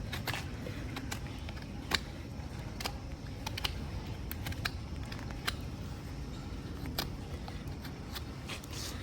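Hoof knife paring a horse's hoof: scattered sharp clicks and scrapes, about one a second and loudest about two seconds in, over a low steady rumble.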